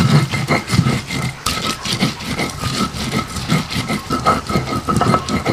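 Stone pestle ground back and forth over fresh red chillies on a flat stone grinding slab, a rhythmic gritty scraping and crushing at about three strokes a second.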